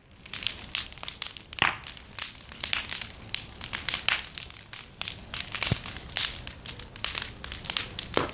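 Large bonfire crackling, with irregular sharp pops and snaps.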